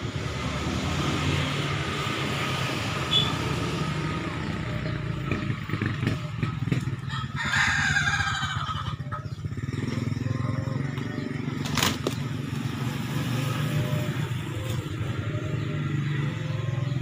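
A steady low engine drone, like a motorcycle running nearby. About halfway through a rooster crows, and a few seconds later there is a single sharp knock.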